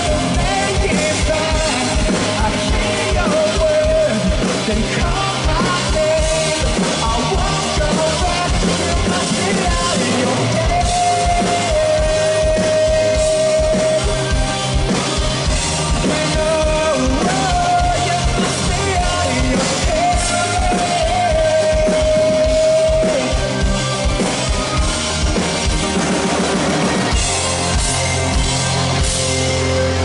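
Rock band playing live: a steady drum beat under keyboards, with a male lead singer holding long notes. Near the end the drums drop out, leaving a sustained low chord.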